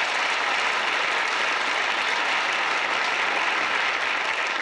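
Sitcom studio audience applauding, a steady dense clapping throughout.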